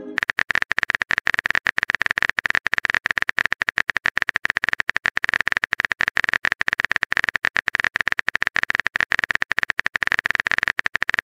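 Phone-keyboard typing sound effect: a fast, unbroken run of sharp clicks.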